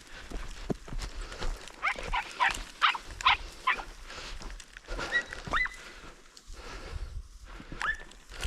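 Podenco hunting dogs giving short, high yelping barks: a quick run of about six yelps, then a few more singly, as they work after rabbits.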